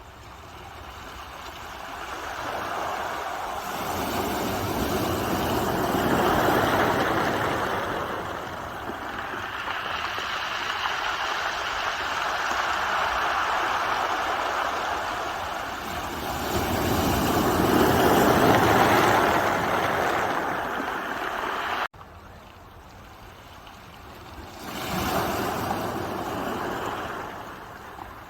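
Ocean waves breaking and washing up the shore in slow surges that swell and fall back, two big ones followed by a smaller one. The sound drops off abruptly about three-quarters of the way through.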